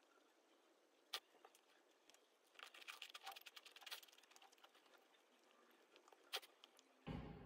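Faint eating and packet-handling noises: light crinkling of a plastic biscuit wrapper and crunching, with a denser patch of crackle about three seconds in and two sharp clicks, one about a second in and one near the end.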